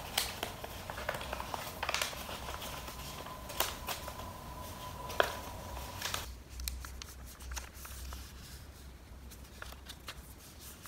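Origami paper being handled and folded: crisp rustles, crinkles and small crackles at irregular moments, busier for the first six seconds and then quieter.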